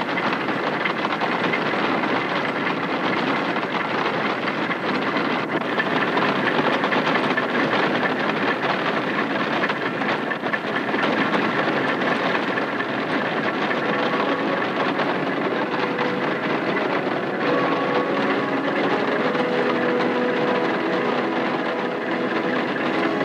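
Albion patent grinding mill running steadily as it grinds grain: a loud, continuous mechanical noise, with a few faint steady tones coming through over the second half.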